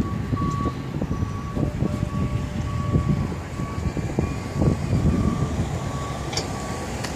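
A vehicle's reversing alarm beeping steadily, about two beeps a second, over uneven low rumbling street noise.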